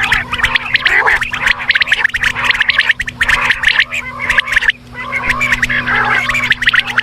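Quail calling: a dense, rapid chattering of many short notes, broken briefly about five seconds in, over a steady low hum.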